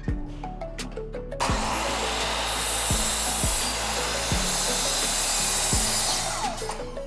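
A power tool cutting wood, starting suddenly about a second and a half in and running steadily for about five seconds before fading out, over background music with a steady beat.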